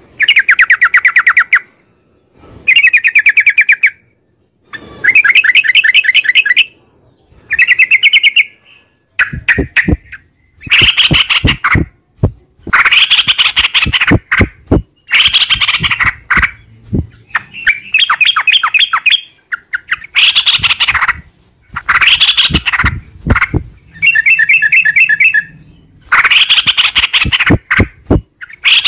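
Yellow-vented bulbul (trucukan) singing a long, loud, fast-rolling "ropel" song: rapid trilled phrases of a second or two, repeated one after another with short breaks.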